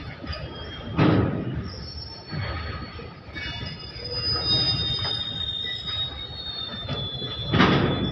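Indian Railways goods train's freight wagons rolling past, their steel wheels squealing against the rails in a thin high whine. Heavy clunks come as wheels pass over the track, about a second in, twice more a little later, and loudest near the end.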